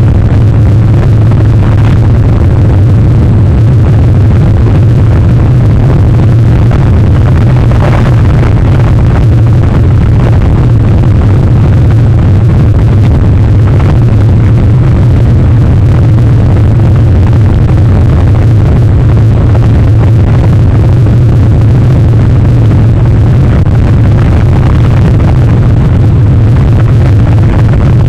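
Wind buffeting the outdoor microphone of a webcam during a rainstorm: a steady, loud low rumble with no breaks.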